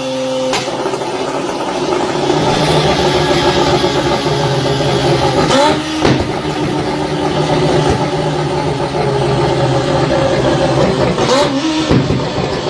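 Mazda RX-7's rotary engine running, with two quick rises in pitch about six seconds apart.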